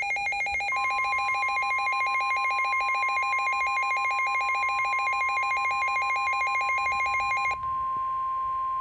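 Emergency Alert System warning tones: a rapidly pulsing, trilling electronic alarm tone, joined about a second in by a steady single-pitched alert tone. The pulsing stops near the end while the steady tone carries on.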